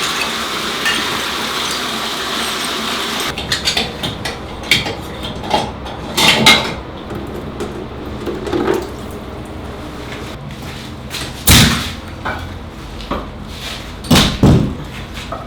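Irregular knocks, taps and clatter of renovation work on hard materials, after a few seconds of steady hiss. One sharp knock about three quarters of the way through is the loudest, and two more strong knocks come near the end.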